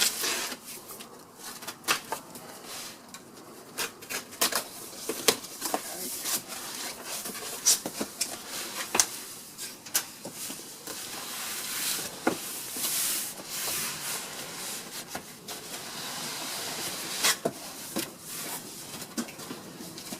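A cardboard shipping box being opened and unpacked by hand: cardboard and packing rubbing and rustling, with many scattered sharp knocks and clicks.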